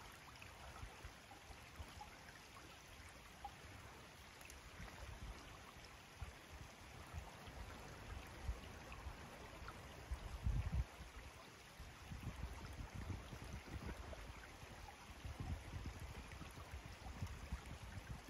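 Faint lakeshore ambience: loch water lapping and trickling among shallow shoreline stones, with wind buffeting the microphone in low rumbles, strongest about ten seconds in and through the last third.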